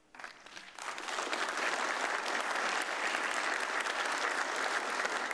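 Audience applauding, starting right after the speech ends, building up over the first second and then holding steady.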